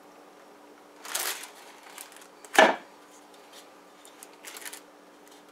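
A metal bundt pan and a glass plate being flipped over together. There is a rustle, then one sharp knock about two and a half seconds in as they come down on the counter, followed by light scraping and tapping as the pan is handled.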